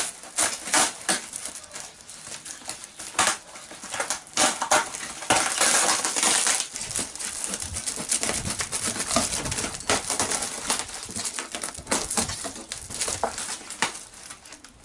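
Cardboard shipping box being torn open by hand, with repeated sharp rips and crackles of cardboard and plastic wrap and a longer tearing run about five seconds in.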